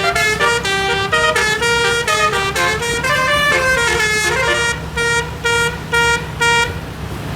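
A bus's 12-note telolet horn, a multi-trumpet musical air horn, plays a quick tune of short changing notes. It ends with four evenly spaced blasts on one chord about half a second apart, then cuts off near the end. An engine rumbles low underneath.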